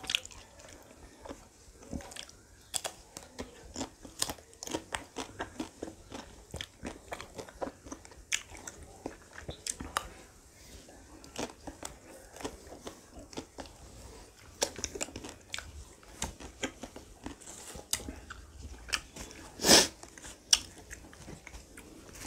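A person biting and chewing ice cream close to the microphone: many short, irregular crunches and mouth clicks, with one louder sudden crunch or knock about three-quarters of the way through.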